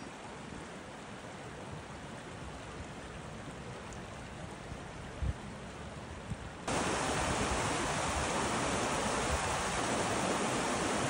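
Steady rushing of a mountain stream over rocks, cutting suddenly to a louder, fuller rush about two-thirds of the way through. A brief low thump about five seconds in.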